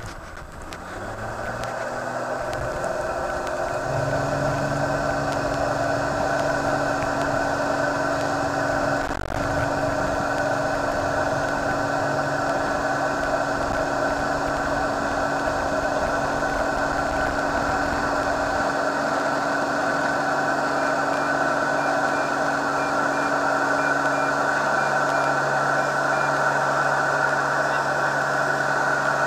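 Continental IO-360 six-cylinder, 210 hp engine and propeller of an Express-CT light aircraft, heard from the cabin. It rises in pitch and loudness to full takeoff power over the first four seconds, then runs steadily at full throttle through the takeoff run and climb. A low rumble from the wheels rolling on the runway stops about two-thirds of the way through as the aircraft lifts off.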